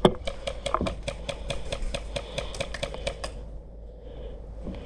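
Airsoft gun firing on full auto: a fast, even run of sharp clicks, about eight a second, that stops about three seconds in.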